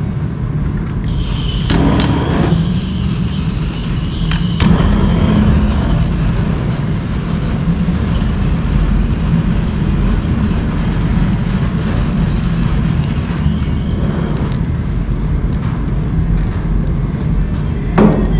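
A wood stove fire being lit with a butane torch: a steady rumbling flame with hiss, broken by a few sharp clicks and crackles.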